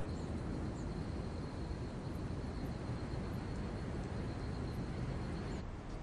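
Evening outdoor ambience: crickets trilling steadily in one high continuous tone over a low background rumble; the trill stops shortly before the end.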